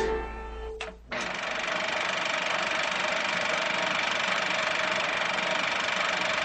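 The tail of a short music jingle dies away. About a second in, a steady, unchanging hum with a hiss and a faint constant whine starts and holds.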